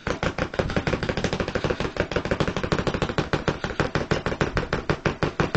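Axis double bass drum pedal beaters hammering a makeshift practice pad, a cardboard box covered with a taped-on sweater, in a fast, even stream of alternating-foot strokes. This is the alternate heel-down technique, with the feet letting the pedals rebound, which plays louder and faster than standard heel-down.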